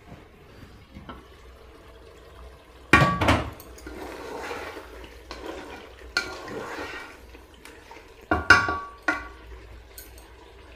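Cookware clanking and stirring: the lid comes off an electric rice cooker with a ringing clank about three seconds in, then a spatula stirs and scrapes chicken masala in the cooker's metal pot, with a second ringing clank a little after eight seconds.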